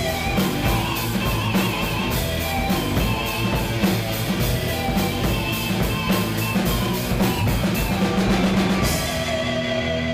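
Rock band playing with drum kit and electric guitars, the drums beating steadily; near the end the drums stop and a final chord rings out.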